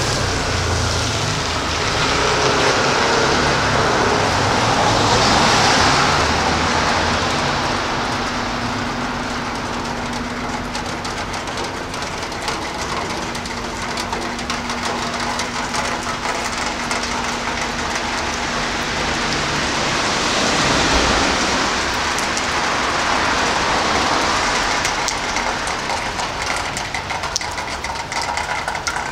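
City street ambience: a continuous hiss of passing traffic that swells twice, with a steady low hum through the middle.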